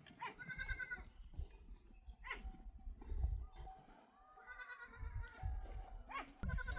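Goats bleating several times, in wavering calls, one of them long, with a low rumble between the calls.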